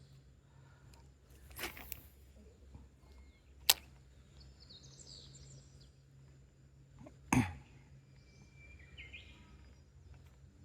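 Faint birds calling over a low steady hum, broken by three short sharp clicks; the sharpest comes about three and a half seconds in, and another about seven seconds in.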